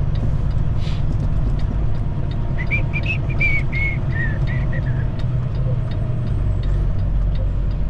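Semi-truck diesel engine running at low speed, heard inside the cab as a steady low rumble. A short run of high whistling tones that step up and down in pitch comes in about two and a half seconds in and stops near the middle.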